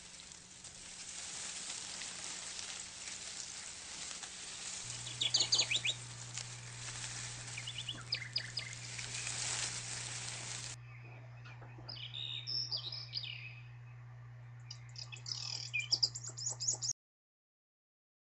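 Birds chirping over a steady hiss, with a low hum starting about five seconds in. The hiss drops away suddenly about eleven seconds in, more chirps follow, and the sound cuts off abruptly a second or so before the end.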